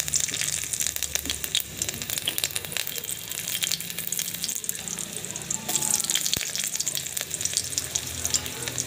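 Chopped garlic frying in hot mustard oil in a kadhai, sizzling with a dense run of fine crackles.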